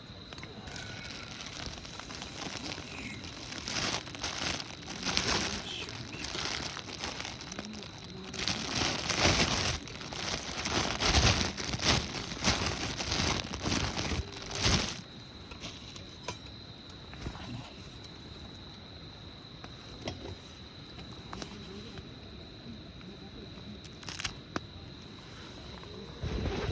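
Crinkling and rustling in irregular bursts over roughly the first fifteen seconds, then quieter with a few isolated clicks and a faint steady high whine underneath.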